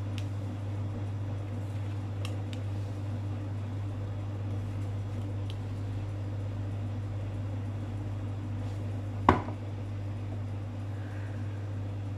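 Tarot cards dealt one at a time onto a cloth-covered table: a few faint snaps and taps, and one sharper knock about nine seconds in. A steady low hum runs underneath.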